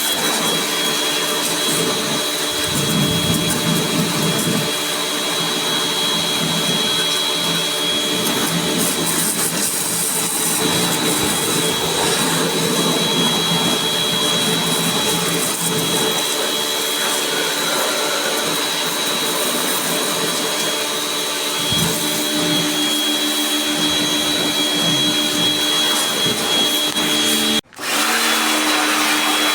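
A small electric motor running steadily with a constant whine over a hiss. It cuts out for an instant near the end and starts again at once.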